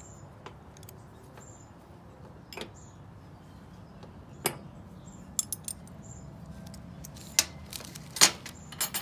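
Scattered light metallic clicks and clinks as brass gas fittings are handled and screwed onto a propane hose and a small open-end wrench is picked up. The clicks are spaced irregularly, several falling in the second half.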